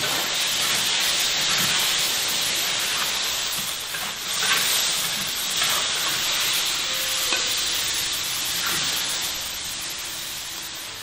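Pork and dried turnip stir-frying in a large wok: a steady sizzle, with a few scrapes of a wooden spatula against the pan. The sizzle fades near the end.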